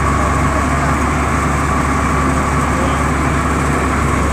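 Steady engine drone of a sewer-cleaning truck running its pump to clear the blocked manhole line, with a constant high whine above it.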